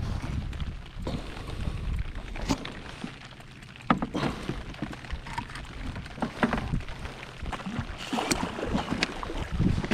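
Irregular knocks, clicks and rustling over a steady low rumble.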